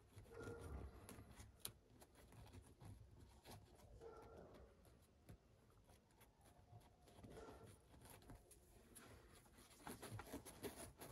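Faint scraping, rustling and light clicks of a plastic applicator spatula working a backing patch under a tear in a leather seat.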